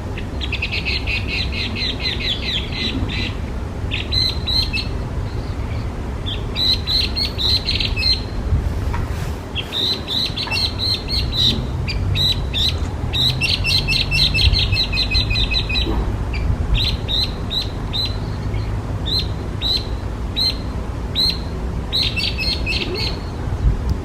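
Hwamei (Garrulax canorus) singing: loud phrases of fast repeated whistled notes broken by short pauses, turning to spaced single notes in the last third. A steady low rumble runs underneath.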